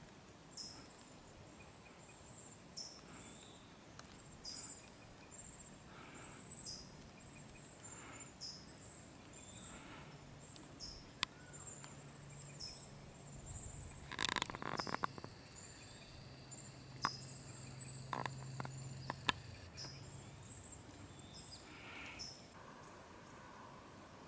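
Faint evening outdoor ambience with short high chirping calls repeating every second or two. From about 12 to 20 seconds in there is a low steady hum with several sharp clicks, the loudest a short burst about 14 seconds in.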